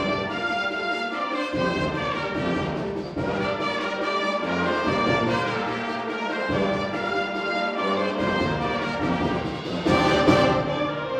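Concert band playing, with brass and woodwinds in full sustained chords. A loud accented hit comes about ten seconds in.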